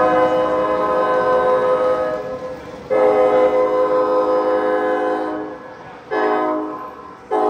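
Train horn sounding a chord of several tones in the grade-crossing pattern: two long blasts, a short one, then a final long one beginning near the end.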